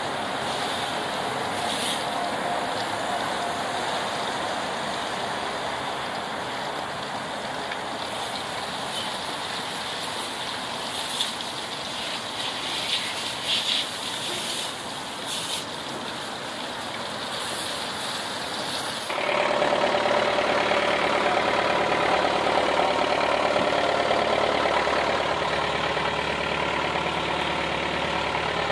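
Hose spraying water onto a steel ship's deck, a steady hiss with a few knocks. Partway through it cuts abruptly to the motor whaleboat's engine running steadily and louder as the boat moves through the water.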